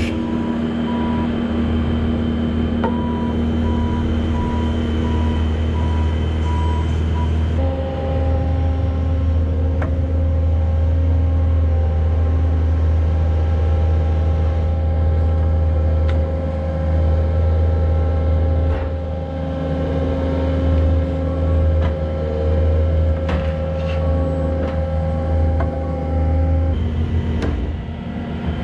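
Diesel engine of a Bobcat skid-steer loader running steadily at a constant speed, with a faint repeating beep in the first several seconds and a few light knocks.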